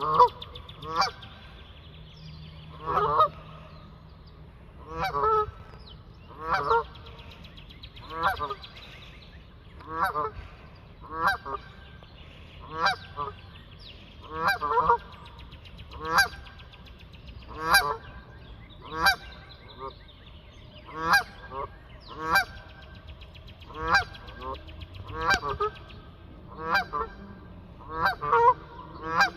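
Geese honking over and over, about one honk a second, sometimes two in quick succession.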